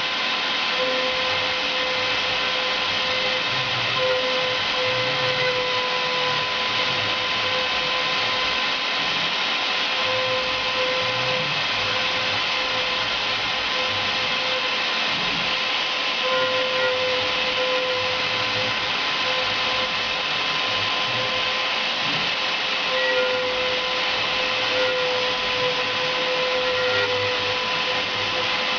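CNC router spindle running steadily with a constant whine over a loud rush of cutting noise.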